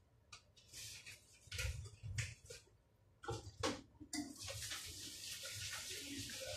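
Dishes knocking a few times in a kitchen sink, then about four seconds in the tap runs with a steady hiss of water onto the dishes as they are washed.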